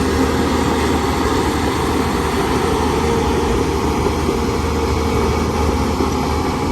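Bulldozer's heavy diesel engine running steadily under load, with a deep, even hum.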